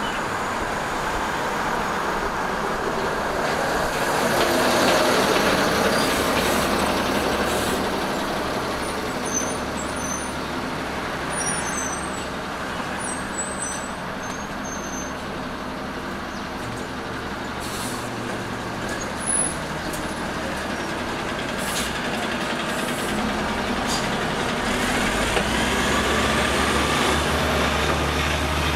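Road traffic on a busy city street: cars and buses passing in a steady wash of engine and tyre noise, swelling about five seconds in. Near the end a bus's engine adds a low rumble.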